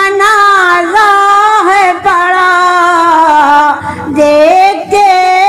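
An elderly woman's solo voice chanting a noha (Muharram mourning lament) in long, drawn-out notes that waver and bend in pitch, with a short breath about four seconds in.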